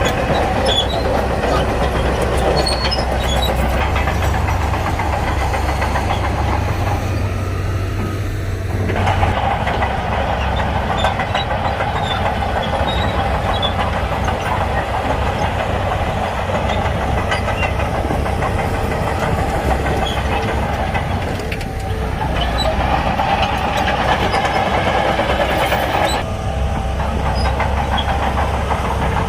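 Shantui crawler bulldozer working: its diesel engine running steadily while the steel tracks clank and squeal, the clatter easing off briefly a couple of times.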